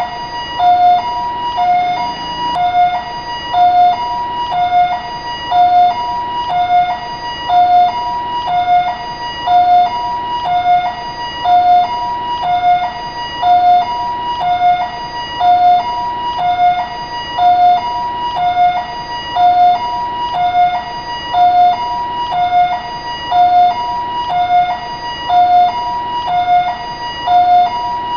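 Taiwanese ambulance siren sounding its two-tone hi-lo call, a lower and a higher note taking turns about once a second in a steady, unbroken cycle.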